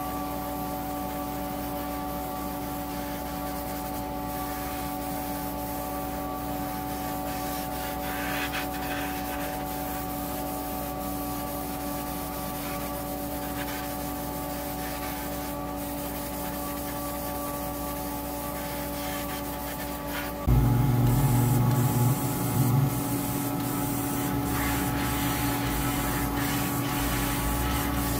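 Rubbing or sanding by hand over a steady electric hum. About twenty seconds in, a louder, lower hum starts up.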